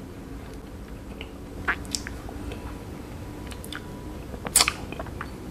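Close-up mouth sounds of chewing and swallowing the last mouthful of ice cream, with a few wet lip smacks and clicks; the loudest pair comes about four and a half seconds in, as the wooden stick goes to the lips.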